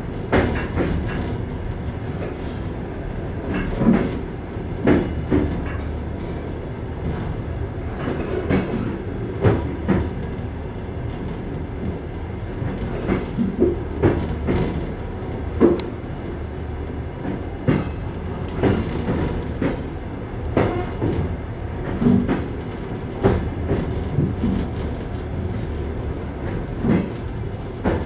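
Passenger train wheels knocking over the rail joints of jointed track, heard from inside the car's vestibule: a steady rumble with sharp clickety-clack knocks recurring every second or so.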